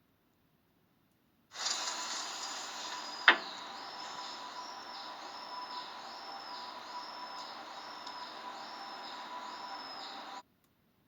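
Outdoor ambient noise with a high chirping call repeating about once a second and a faint steady tone; it starts and stops abruptly, with one sharp click shortly after it begins.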